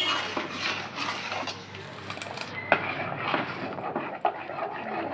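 A metal ladle stirring custard in a metal pot, scraping and clinking against the pot's sides and bottom, with a couple of sharper clinks.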